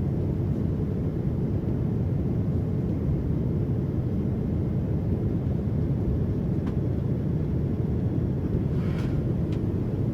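Steady low rumble of a Boeing 787-9's cabin in cruise, the engine and airflow noise heard from a passenger seat, with a brief faint rustle near the end.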